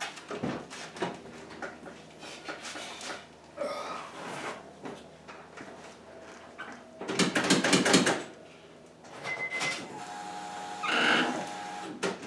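Knocks, clunks and rustling as a person climbs into a car's driver seat and moves about inside, with louder scraping rustles about seven seconds in and again near the end, and a short high beep about nine seconds in.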